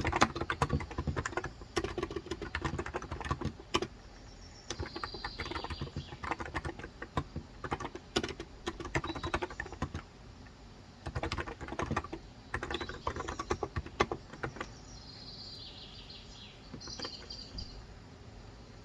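Fast typing in bursts on a Cox Endeavour electro-capacitive (Topre-style) 35 g tenkeyless keyboard, with short pauses between runs. A bird chirps about five seconds in and again for a few seconds near the end, when the typing is quieter.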